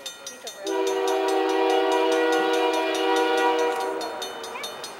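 CN locomotive air horn sounding one long, steady chord for about three seconds, starting under a second in: the train whistling for the grade crossing as it approaches. Level-crossing warning bell ringing with rapid, even dings throughout.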